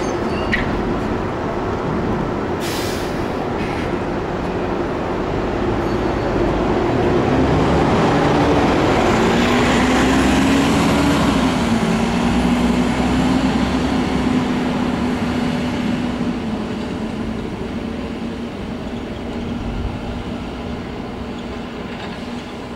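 City bus running along the street, its engine hum and road noise building to a peak about halfway through and then fading. A short hiss comes about three seconds in.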